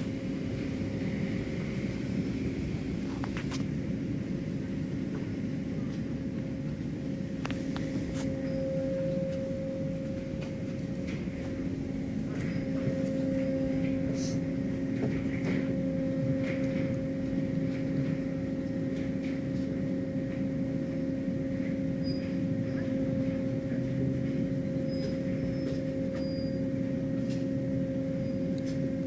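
Automatic tunnel car wash machinery running: a steady hum holding two constant tones over a low rumble, as the cloth brushes work over a car. Scattered short clicks and knocks.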